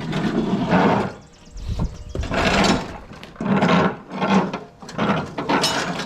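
Steel mower deck of a John Deere Z425 zero-turn being worked loose and pulled out from under the mower: a series of scrapes and rattles of metal, about six in all, with short pauses between them.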